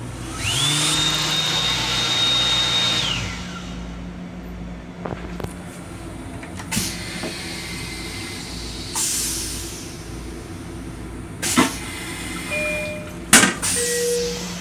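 Electric hand dryer in an M7 railcar restroom: its blower motor spins up with a rising whine about half a second in, blows for about three seconds and winds down. Two sharp knocks come later, over a steady low hum.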